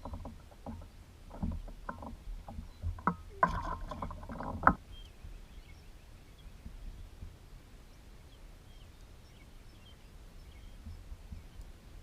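Knocks and clatter of gear against a fishing boat, several sharp ones in a quick cluster about four seconds in, over a low rumble that carries on faintly after the knocking stops.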